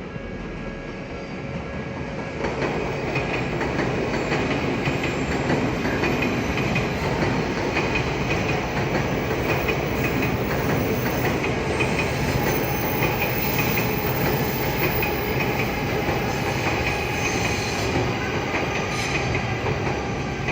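An electric commuter train running past a level crossing, its wheels clacking over the rail joints, louder from about two and a half seconds in.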